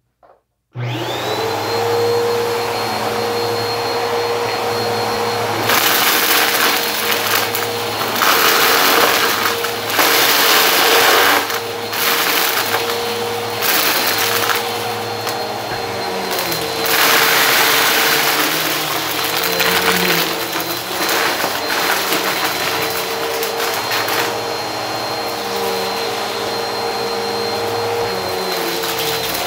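Bissell Helix vacuum cleaner switched on about a second in and running with a steady whine, with louder rattling surges as it sucks up a pile of small colourful debris from carpet.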